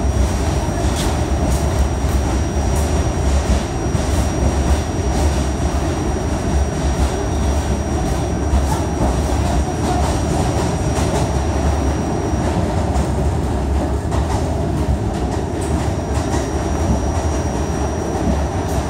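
Interior ride noise of an R68A subway car running along the line: a steady, heavy rumble of wheels on rail, with scattered sharp clicks as the wheels pass over rail joints and a thin steady high whine.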